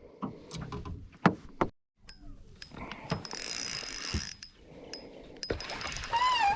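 Fishing gear clicking and rattling, then a fishing reel being cranked with a whirring hiss, and a short squeak near the end.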